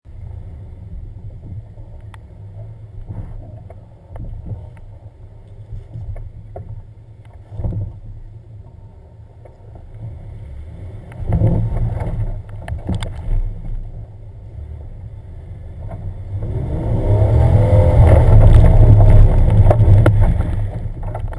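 Off-road 4x4's engine running, heard close up from the hood, with occasional sharp knocks from the rough trail. About 17 seconds in it gets much louder, its revs rising and falling several times as it climbs a slope, then it eases off near the end.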